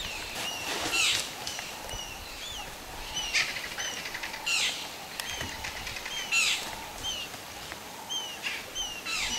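Vultures feeding at a carcass: wing flapping and several harsh, rasping bursts every second or two. Underneath, a small bird's short chirps repeat about twice a second.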